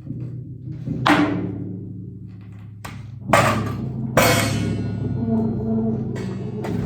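Improvised percussion: three struck hits, about a second, three seconds and four seconds in, each ringing on, over a steady low tone.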